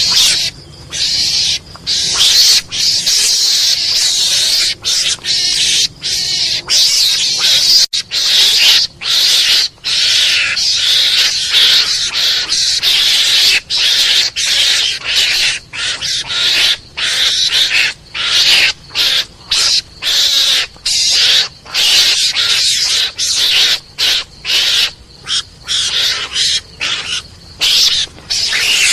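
Mongoose (garangan) hunting lure call: harsh, raspy animal calls repeated in rapid, broken bursts with only brief gaps, going on without pause.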